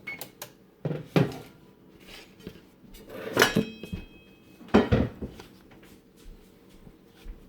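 Kitchenware clattering: a few separate knocks of pans and dishes being handled, the loudest about one, three and a half and five seconds in, one with a brief metallic ring.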